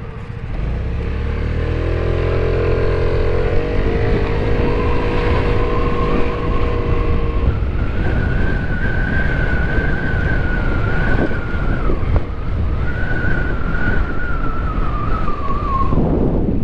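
Motor scooter engine pulling away and accelerating, its pitch rising over the first few seconds and then holding a high, steady whine, with a brief dip about twelve seconds in. Heavy wind and road noise runs underneath.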